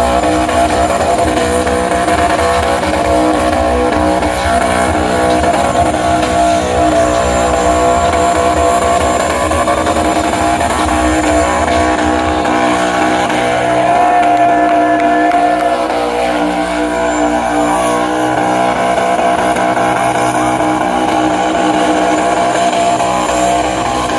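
LS V8 engine of a burnout pickup held at high revs while its rear tyres spin in a smoky burnout. It runs loud and steady, and the deep low rumble eases about halfway through.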